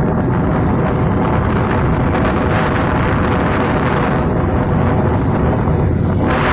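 Wind rushing over the microphone on a moving motorcycle, with the bike's engine running steadily underneath. The rush swells briefly a few times.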